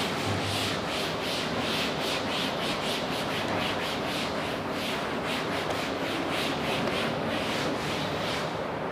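A cloth rubbing chalk off a chalkboard in quick back-and-forth wiping strokes, about three or four a second.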